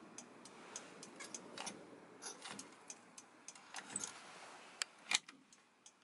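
Faint, irregularly spaced light clicks and ticks, with one sharper click about five seconds in.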